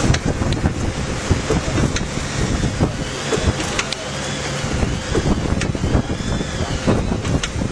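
Honey sachet packaging machine running, a steady mechanical din with repeated sharp clicks and knocks from its moving parts.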